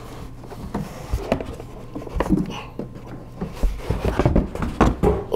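A portable power station being lifted out of its snug cardboard shipping box: irregular scraping, rubbing and knocks of the unit against the cardboard, sparse at first and busier from about two seconds in.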